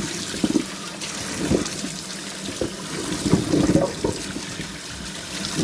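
Water running from a tap while freshly harvested potatoes are washed under it, with scattered light knocks and rubbing of the potatoes against each other and the basin.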